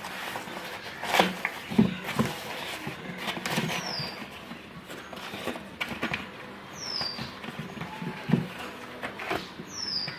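Irregular knocks and clicks of objects being handled, with a bird's short chirp falling in pitch, heard three times a few seconds apart.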